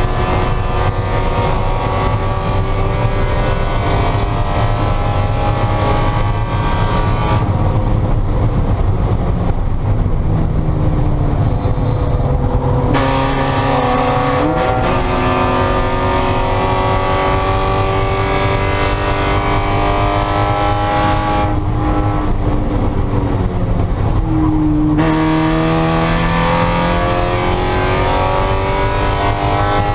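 Spec Miata race car's four-cylinder engine running hard, its note climbing and falling through gear changes and throttle lifts, with a sharp change about halfway through and another about five seconds from the end.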